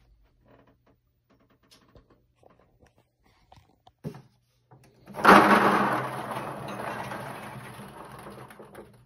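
Electric blower motor of a vintage Bingo King bingo machine switching on about five seconds in: a sudden rush of air over a steady motor hum, easing off gradually before cutting off abruptly. Before it, a few faint ticks and a knock.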